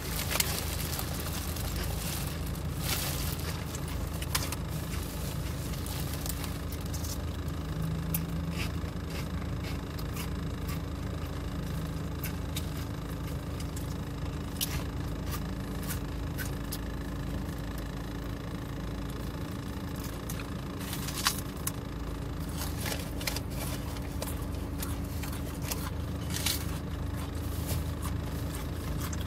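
Steady low hum of a running car heard from inside the cabin, with scattered crackles and clicks of a plastic sandwich bag being handled and of chewing.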